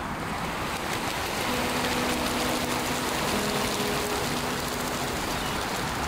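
Steady rushing noise of wind and lake water, growing a little louder about a second in.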